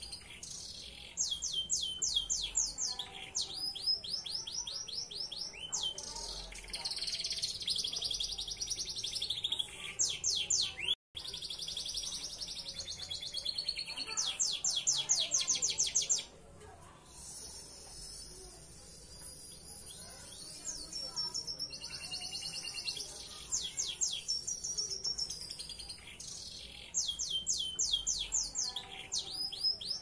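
Belgian Bossu canary singing a long song of rapid trills and quickly repeated note series. A softer stretch comes about sixteen seconds in, and the sound cuts out for an instant about eleven seconds in.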